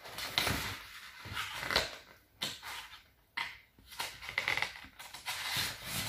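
Paper pages of a picture book rustling and flapping as they are turned and the book is handled, in several short bursts with brief pauses between.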